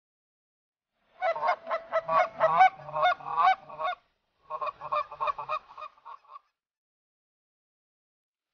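Rapid series of Canada goose honks and clucks, many short notes a second, in two runs of about three and two seconds with a brief pause between.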